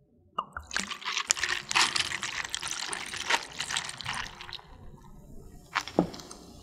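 A drink being poured: a splashing pour that starts about half a second in and tapers off over roughly four seconds, followed by one short sharp sound near the end.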